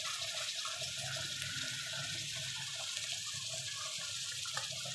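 Onions and ginger-garlic paste sizzling in oil in a frying pan over a low gas flame: a steady hiss with faint crackling.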